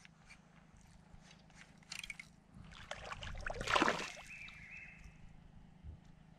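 A splash on the lake surface a little under four seconds in, the loudest sound here, with a smaller splashy sound about two seconds in.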